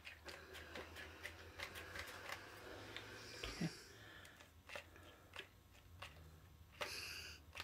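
Steam iron letting out two short hisses of steam, about three and a half and seven seconds in, amid faint clicking and crackling.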